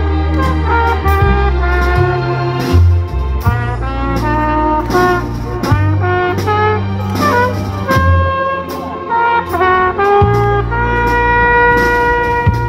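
Live trumpet playing a slow dance melody over amplified bass and drums, its notes held long near the end.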